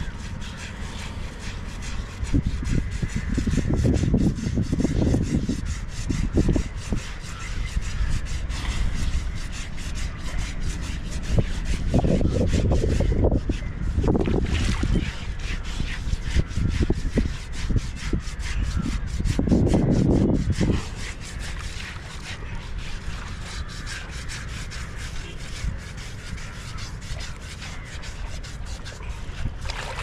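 Rough scrubbing strokes on an elephant's hide during its bath, coming in a few spells of several seconds each over a steady low rumble.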